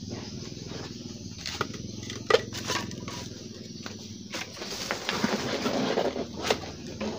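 Bamboo poles knocking and clattering against the roof frame as they are handled, with several sharp clacks and a stretch of scraping and rustling near the end.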